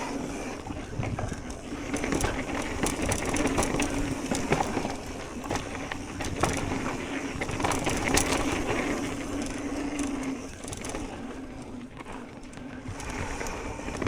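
Electric mountain bike ridden down a dirt trail: tyres crunching over dirt and the bike rattling, with a steady hum that stops about ten seconds in.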